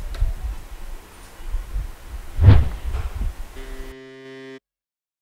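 Deep low thumps and rumble, the loudest thump about two and a half seconds in, then a brief steady electronic tone that cuts off suddenly into silence.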